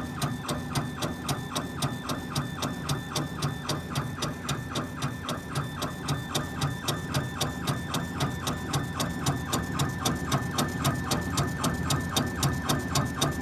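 Laser engraver's stepper-motor gantry sweeping the head back and forth as it rasters a logo into a Zippo lighter, with a regular click about five times a second at each line reversal. A steady fan hum runs underneath.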